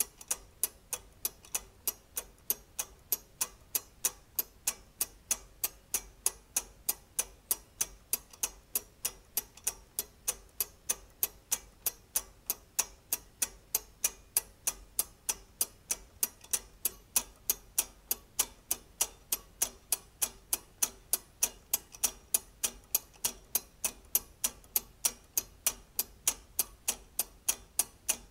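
Weight-driven brass and steel clockwork mechanism ticking steadily through its escapement: a sharp, even tick about three times a second.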